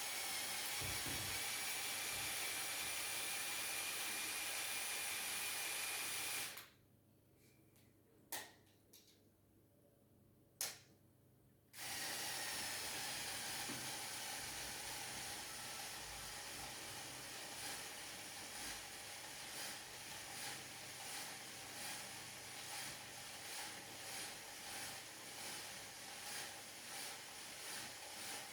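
Small motor driving a LEGO Technic model's plastic gears, running with a steady whirr. It stops about six seconds in, with two light clicks in the pause, then starts again and runs on. In the later part it has a regular pulsing beat a little faster than once a second.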